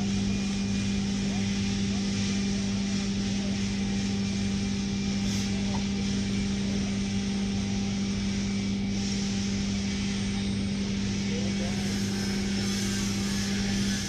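TIG welding arc on stainless steel, a steady buzzing hum over a hiss that holds without change and cuts off at the very end as the arc is broken.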